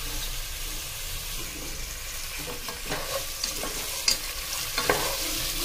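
Raw quail pieces sizzling in hot oil with the onion-tomato masala in a pan, a steady frying hiss. From about halfway on, a spatula scrapes and knocks against the pan a few times as the meat is stirred.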